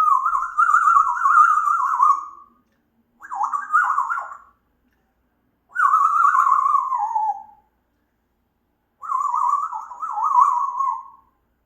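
African grey parrot giving four warbling whistled calls, each a second or two long with a quickly wavering pitch, the second and third sliding down at the end.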